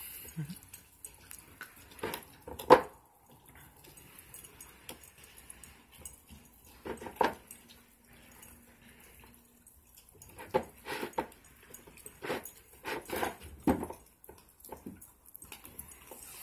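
Husky and malamute puppies chewing and gnawing raw, partly frozen chicken legs, bone and all: irregular wet crunches, licks and knocks against a plastic food bowl, the sharpest knock about three seconds in.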